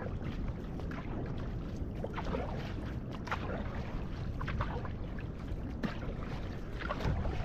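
Paddle strokes splashing in the water beside an outrigger canoe, a splash roughly once a second, over a steady low rumble of water.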